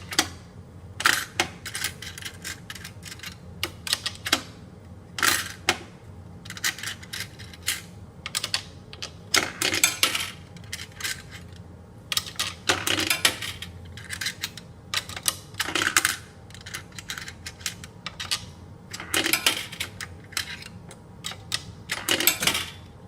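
Coins dropped one after another into the coin slot of a coin-operated drum washing machine, each one a short metallic clink and rattle, every second or two, over a steady low machine hum.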